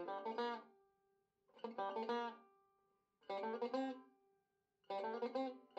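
Background music: a plucked-string tune played in short phrases of about a second, each followed by a brief pause.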